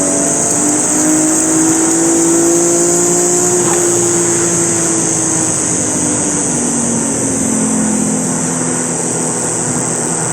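Toyota 1JZ-GT straight-six engine heard through its knock sensor, the signal amplified by an HKS knock amplifier for checking detonation during tuning. The engine tone climbs for the first few seconds, then sinks slowly, over a steady high hiss.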